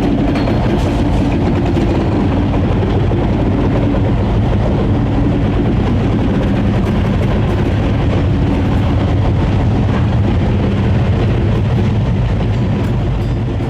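Diesel locomotive engine running at a steady pitch as the locomotive works nearby, with rumbling rail noise beneath it.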